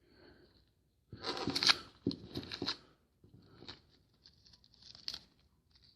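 Foil trading-card pack wrappers crinkling and rustling as they are handled, with the loudest rustling about one to three seconds in, then lighter crinkles and a sharp snap about five seconds in.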